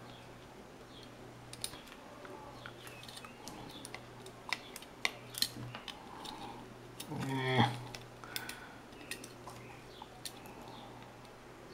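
Faint scattered clicks and taps of hand-soldering resistor leads on a circuit board: the iron tip, solder wire and component leads touching the board, over a steady low hum. About seven seconds in there is a short, louder pitched sound that falls in pitch.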